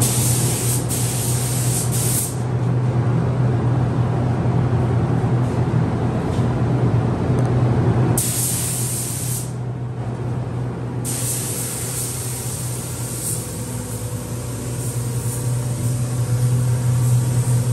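Paint booth air handling running with a steady low hum, while an air spray gun hisses in bursts as paint is sprayed: for about two seconds at the start, briefly about eight seconds in, and again from about eleven seconds on.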